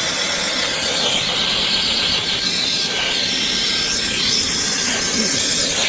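Colton mini cordless air gun's high-speed brushless motor running steadily: a high-pitched whine over rushing air.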